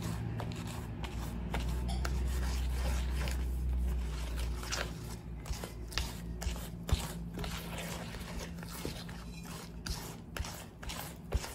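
Silicone spatula stirring and scraping thick red velvet cookie dough around a stainless steel bowl, in irregular scrapes and soft knocks, working the red gel food colour evenly into the creamed butter, sugar and egg mixture.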